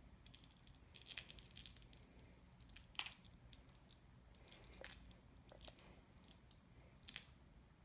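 Faint, scattered rustling and light clicks from a cat batting at a dangled fluffy wand toy, with one sharper click about three seconds in.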